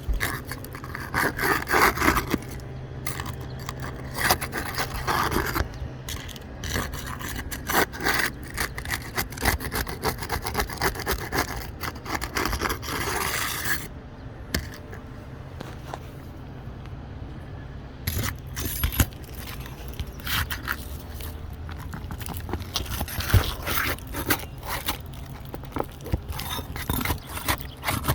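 Irregular scraping and rubbing with many short clicks and knocks, like hand work on a hard surface.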